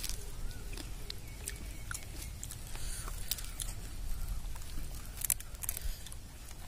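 A person eating charred grilled fish: quiet chewing with scattered small clicks and crackles, then fingers picking at the burnt fish skin and flesh.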